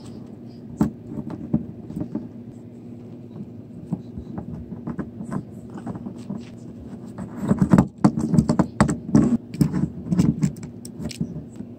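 Scattered clicks, taps and rustles of small plastic toy figurines being handled and set down, busier and louder in the second half, over a low steady hum.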